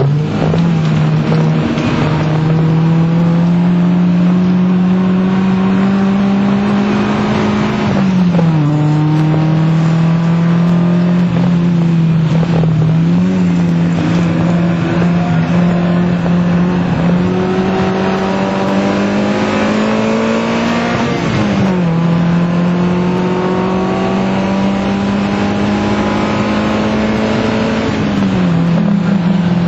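FIAT Punto Mk1's 1.2 16-valve four-cylinder engine pulling hard at high revs from inside the cabin. The pitch climbs slowly under acceleration and drops sharply at each of four gear changes.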